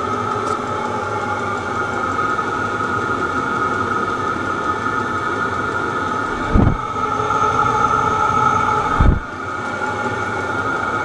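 Chinese diesel air heater running steadily, its blower and combustion giving a constant whine, now working properly with the exhaust and air intake fitted the right way round. Two low thumps break in during the second half.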